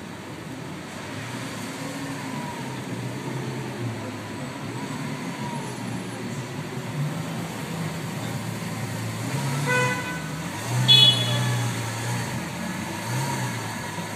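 Lamborghini Aventador's V12 engine idling with a steady low rumble. A car horn sounds briefly twice, about ten seconds in and again a second later, the second louder.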